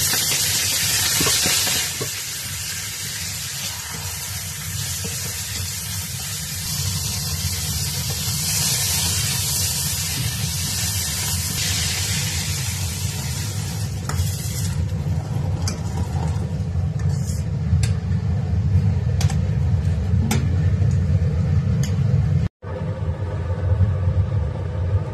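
Blanched bok choy sizzling in hot oil in a stainless steel wok as it is stir-fried with a metal ladle. The sizzling fades about halfway through, leaving a low steady rumble with a few sharp clinks of the ladle against the wok.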